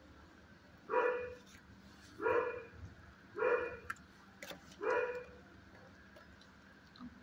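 A dog barking four times at an even pace, about a second and a quarter apart.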